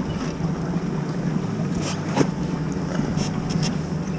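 Boat motor running steadily at low speed as the boat is brought onto its trailer, with wind buffeting the microphone and a few light knocks.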